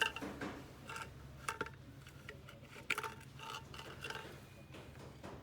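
Scattered small clicks and light taps of a tool and parts as an LED bulb is taken apart to get its driver out, some with a brief faint ring.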